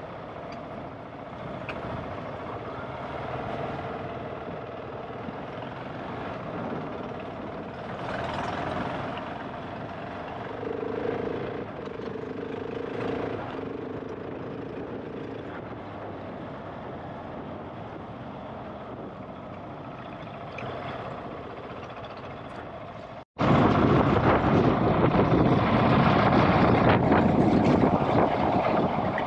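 GasGas ES700 enduro bike's single-cylinder four-stroke engine running as the bike is ridden along a trail, its level swelling and easing a little. About 23 seconds in the sound cuts out for an instant and comes back much louder and noisier.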